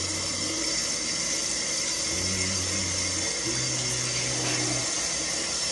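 Running water, a steady rushing hiss, with long low bass notes of a beat underneath.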